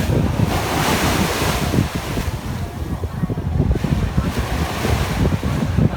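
Wind buffeting the microphone over the rush of water washing along the ferry's hull, the hiss of the water swelling twice, about a second in and again near five seconds.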